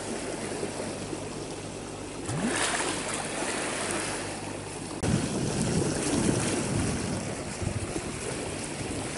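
Water rushing and churning around a camera held underwater from a moving boat, with a steady low hum underneath. About halfway through, the hum gives way to a louder, rougher rumble of turbulent water.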